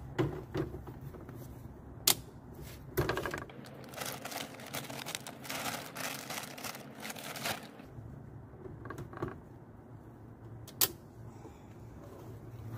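Plastic shopping bag rustling and crinkling as it is worked over an RV power cord's plug, with a few sharp clicks and knocks from the hinged metal lid of a campground power pedestal. The rustling is thickest in the middle.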